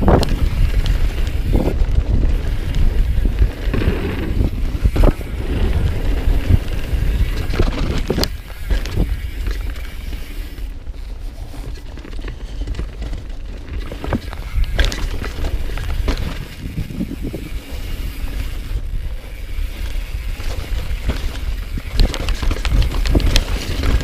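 Commencal Meta V4.2 mountain bike descending a dirt and rock trail: wind rushing over the camera's microphone and tyres rolling on dirt, with the bike clattering in sharp knocks over rocks and roots. The clatter is heavier in the first few seconds and again near the end.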